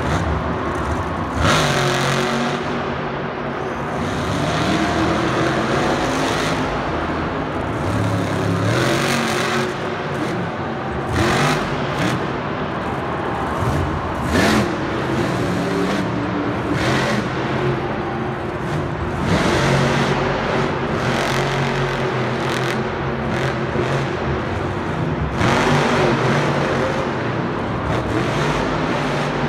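Full-size monster truck's supercharged V8 revving hard over and over. The engine note climbs and falls in repeated surges as the truck pulls wheelies and turns around the arena.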